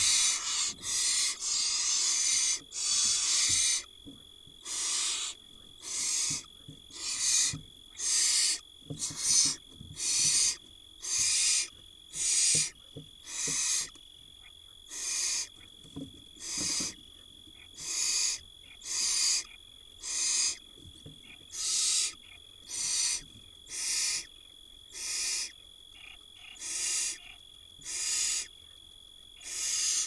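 Barn owl nestlings' hissing, snore-like begging calls for food, one about every second. For the first few seconds the calls run together into a near-continuous hiss.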